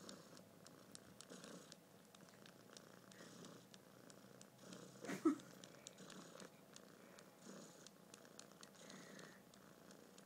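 Domestic cat purring faintly and steadily close up, in slow swells with each breath. One brief louder sound, with a short rise in pitch, comes about halfway through.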